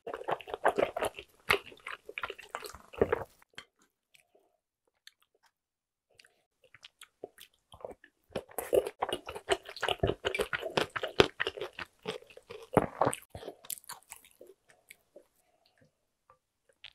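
Close mouth sounds of a person chewing spicy tteokbokki: wet, sticky chewing and smacking for the first few seconds, a quiet pause, then a second run of chewing after a spoonful, from about eight seconds to about fourteen.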